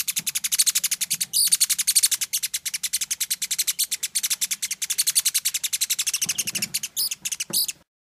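Fledgling Bronze Mannikin giving a rapid, continuous string of high-pitched begging chirps with its beak gaping wide; the calls cut off suddenly near the end.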